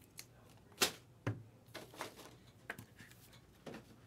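Hard clear plastic card cases clicking and clacking as they are handled and set down: a string of short, sharp taps at uneven intervals, the loudest a little under a second in.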